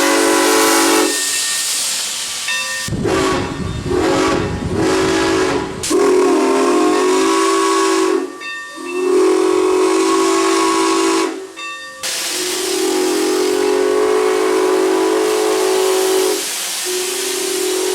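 Steam locomotive whistle blown in a series of long blasts with short breaks between them, over a steady hiss of steam. A low rumble runs under the whistle for a few seconds about three seconds in.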